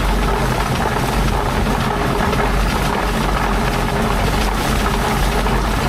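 Pumpkin harvester running: a loud, steady engine drone.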